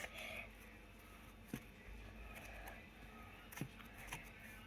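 Quiet room tone with a few faint, soft taps and clicks, the clearest about one and a half seconds in and another near the end.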